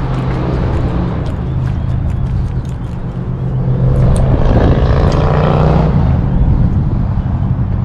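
A motor engine drones steadily, swelling louder and higher about four to six seconds in before easing off again.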